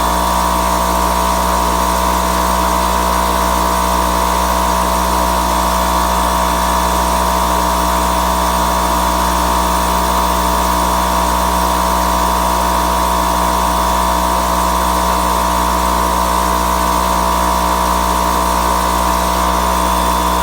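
Bostitch air compressor running steadily, its motor and pump filling the tank, with a constant low hum and a steady whine.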